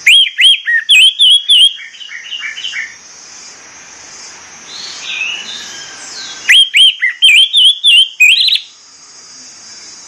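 Orange-headed thrush singing its clear whistled song in two loud runs of quick, sharp, rising-and-falling notes. The first run comes at the start and the second about six and a half seconds in, with softer, quieter notes between them.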